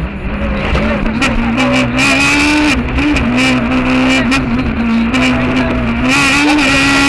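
Peugeot 306 Maxi kit car's naturally aspirated four-cylinder engine under hard rally driving, heard from inside the cabin. The engine note dips and climbs repeatedly as the revs change through lifts and shifts, with sharp clicks scattered throughout.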